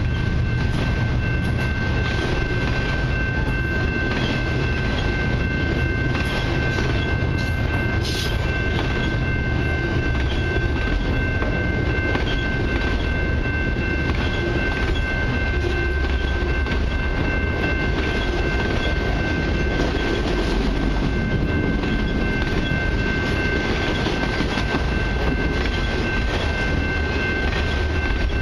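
Freight train of autorack cars rolling past: a steady rumble and clatter of wheels on rail, with a thin, steady high ringing tone over it and one sharp clank about eight seconds in.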